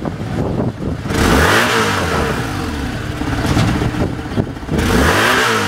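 Motor vehicle engine running, swelling louder twice: about a second and a half in and again near the end.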